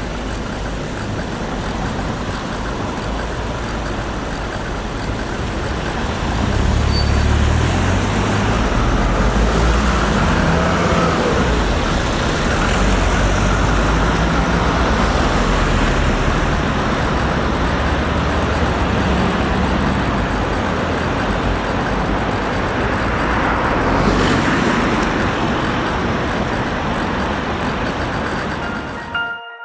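Road traffic: cars driving past over a level crossing, with a steady tyre-and-engine rush that swells about six seconds in as a stream of vehicles pulls away and passes.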